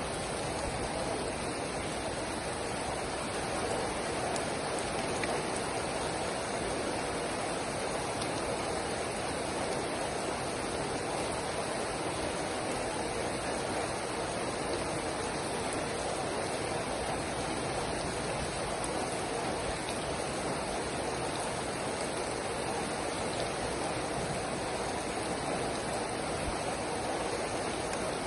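Steady rain falling, an even hiss of many drops with no separate knocks or changes.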